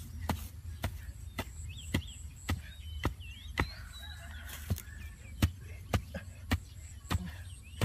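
A wooden digging stick chopping into grassy soil in steady strokes, about two sharp strikes a second. Faint bird chirps behind.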